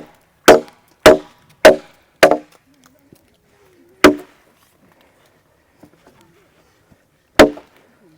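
Machete blade chopping into a wooden log: five quick strikes about half a second apart, then two more spaced out, about 4 and 7 seconds in, each a sharp chop with a brief metallic ring.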